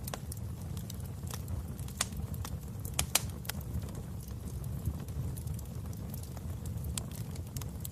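Wood fire crackling in a fireplace: irregular sharp pops and snaps over a steady low rumble of the flames, with the loudest pops about two and three seconds in.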